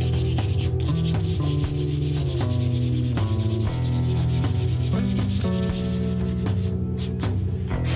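Wooden hand-plane body of ziricote and birch plywood being hand-sanded: a quick, even, scratchy rubbing that stops about six and a half seconds in. Background music with plucked bass and guitar notes plays throughout.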